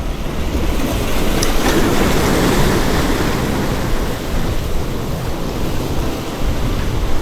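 Sea waves surging and washing on the shore, one swelling up a couple of seconds in, with wind on the microphone.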